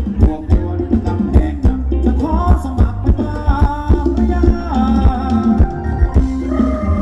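Thai ramwong dance music played by a band: a steady drum beat over a low bass, with a melody line coming in about two seconds in.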